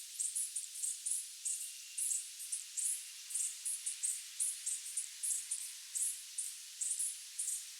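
Insects chirping at night: high-pitched chirps, about three a second and unevenly spaced, from several insects overlapping over a steady high hiss.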